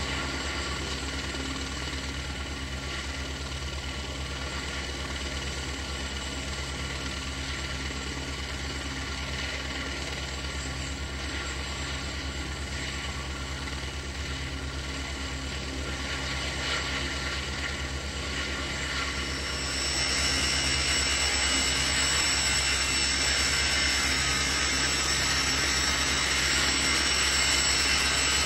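Helicopter running steadily, a fast low rotor chop under a whine. About two-thirds of the way through it grows louder and a higher whine comes in.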